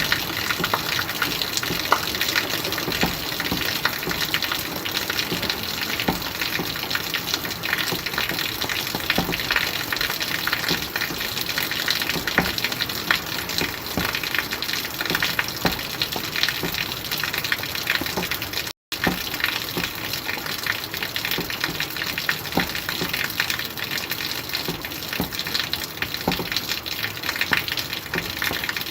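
Steady heavy rain, a dense hiss of falling water with many individual drops ticking sharply through it. It cuts out for an instant about two-thirds of the way in.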